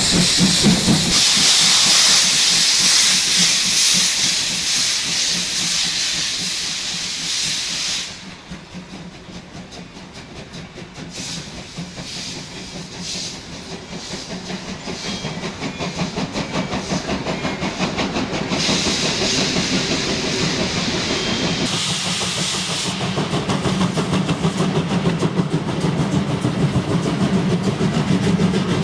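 Steam locomotives starting a heavy train, their steam hissing loudly and venting. The hiss drops away suddenly about eight seconds in, then returns briefly. Near the end, the regular exhaust beats grow louder and quicker as the locomotive gets under way.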